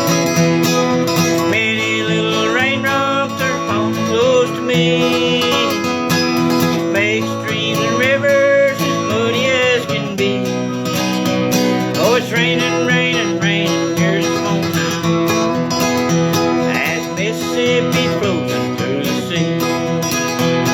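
Country-style acoustic guitar music, an instrumental stretch of a song, with a lead line of sliding, bending notes over steady chords.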